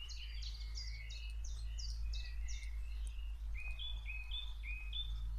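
Songbirds chirping: a quick run of short, high notes, turning about halfway through into a repeated pattern of paired notes, over a steady low rumble.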